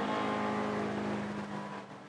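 A car giving off a strange steady humming tone, described as the car singing, that fades away near the end.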